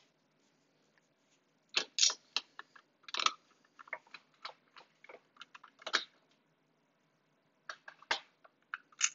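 Small screws being fitted and driven with a Phillips screwdriver into a plastic robot-arm housing: scattered light clicks and ticks of metal on hard plastic. The clicks begin about two seconds in and pause briefly before the end.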